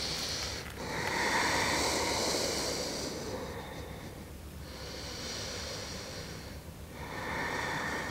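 A woman's slow breaths, in and out, each about two seconds long, heard close on a clip-on microphone while she holds a yoga forward fold.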